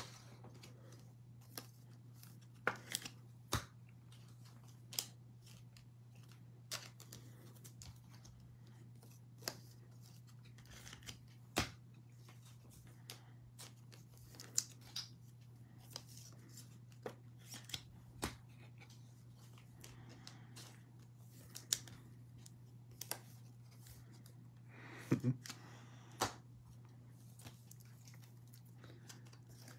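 Faint, scattered light clicks and snips of card-break handling, about one every second or two, over a steady low electrical hum.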